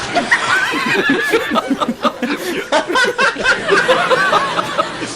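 A crowd of people laughing together, many voices overlapping in pulsing bursts of laughter.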